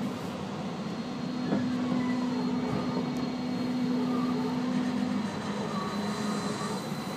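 Running sound inside a Tobu 30000 series electric train car fitted with experimental permanent-magnet synchronous traction motors: the rumble of the wheels on the rails under a steady motor and inverter whine, which drops slightly in pitch about five seconds in.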